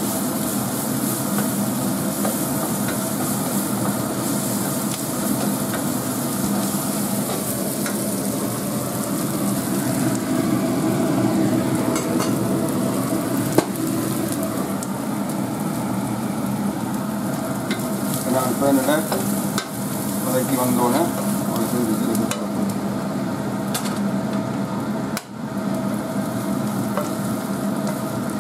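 Chopped onion, curry leaves and chillies frying in hot oil in a stainless steel pan as a tempering, sizzling steadily while a wooden spatula stirs and scrapes them against the metal. There is one sharp click about halfway through.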